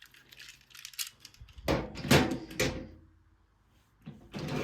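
Small plastic clicks and clattering from handling a toy train's battery compartment as a new battery is fitted, with a louder clatter about two seconds in.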